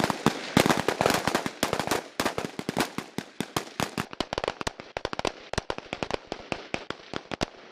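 Several FAMAS 5.56 mm bullpup assault rifles firing together: a ragged string of overlapping sharp shots, densest in the first two seconds and thinning to more spaced-out shots toward the end.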